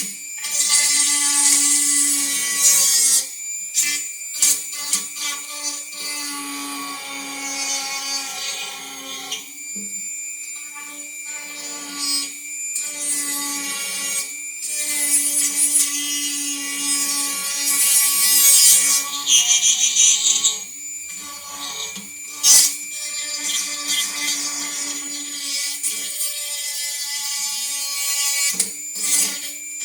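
Dremel rotary tool with a sanding stone, grinding and melting the plastic of a headlight bulb socket. The motor's steady whine carries a hissy grinding noise that swells and fades as the stone is worked against the plastic. The tool stops briefly several times and starts again.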